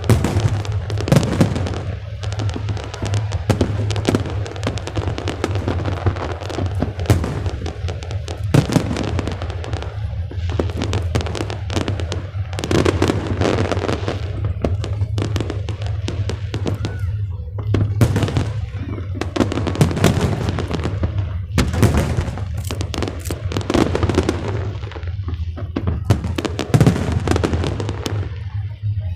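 Aerial fireworks bursting one after another, a steady run of sharp bangs and crackles, with music playing underneath.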